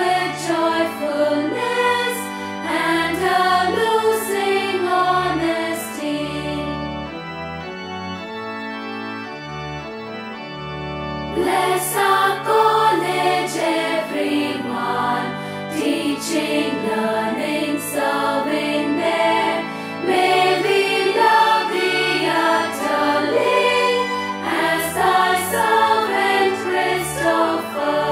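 A choir sings a hymn in harmony with organ accompaniment. About six seconds in the voices stop for roughly five seconds, leaving a quieter passage of held chords, and then the choir comes back in.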